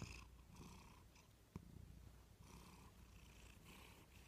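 Domestic cat purring faintly as it is stroked on the head, the purr swelling and fading with each breath about once a second. There is one small click about one and a half seconds in.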